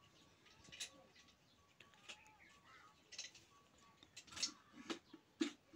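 A few faint clicks and clinks of a metal kettle and tongs handled on a wood-fired mud hearth, coming closer together and louder in the second half.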